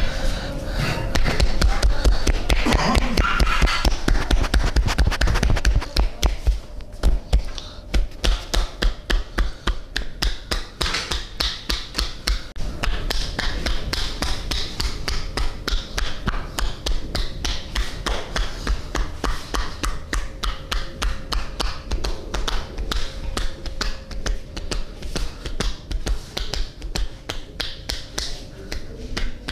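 Percussive massage by a barber's hands striking the body in a fast, even rhythm of several strikes a second. The strikes are denser and louder for the first six seconds.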